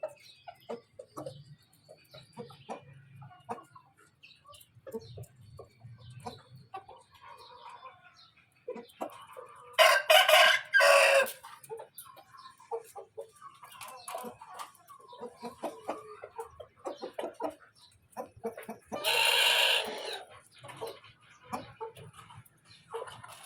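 Aseel fowl clucking throughout, with a rooster crowing loudly twice: once around the middle and again a few seconds before the end.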